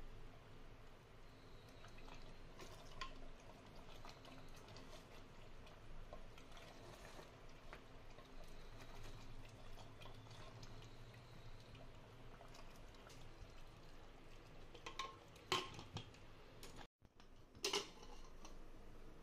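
Faint kitchen sounds: a low steady hum with scattered light clicks and taps, and two sharper clinks near the end.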